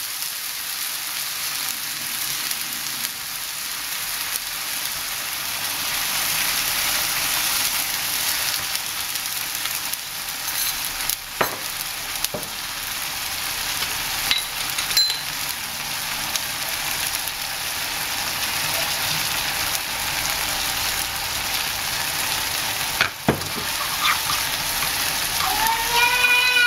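Braising chicken and hairy gourd sizzling and bubbling in a wok after water has been added, with a wooden spatula stirring and knocking against the pan a few times. Near the end a baby starts screaming.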